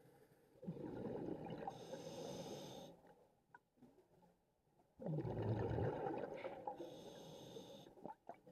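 Scuba diver breathing through a regulator underwater: two breaths about four seconds apart, each a rumbling rush of bubbles with a high hiss in its second half.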